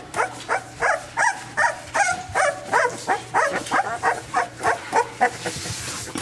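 Young XL American Bully puppy crying: a string of short, high squealing whimpers, about two or three a second, fading near the end.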